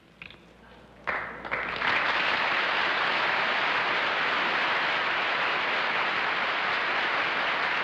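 Studio audience applauding, breaking out suddenly about a second in and then holding steady.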